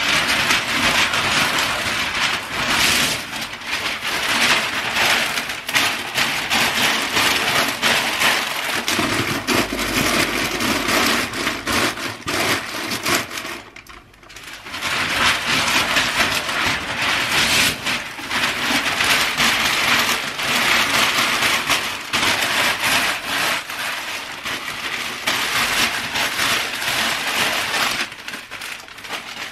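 Sheets of packing paper being crumpled and handled, a dense crackling rustle with a short lull about halfway through.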